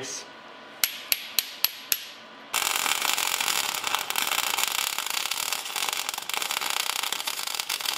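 Arc welding on a steel truck frame: five short sharp snaps about a second in, then from about two and a half seconds a steady crackling weld that runs on.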